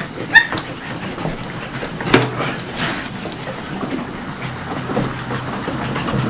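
Dutch Shepherd puppy giving a short, high whimper at the start, then a steady hiss with a couple of knocks about two and three seconds in.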